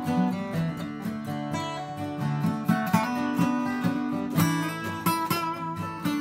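Acoustic string jam playing an instrumental passage: acoustic guitars strumming a steady rhythm while a mandolin picks along, with no singing.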